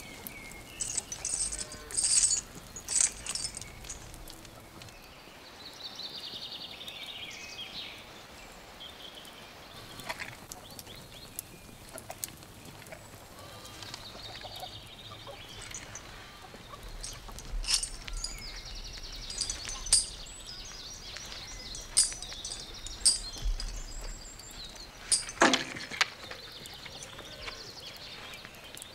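Staged weapon fight: scattered sharp clashes and knocks of a spiked mace and sword against a round shield, the loudest strike near the end.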